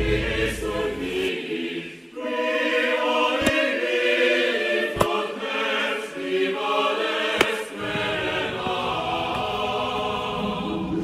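Choral music with sustained, held voices. Three short sharp clicks sound over it, about a third, halfway and two-thirds of the way through.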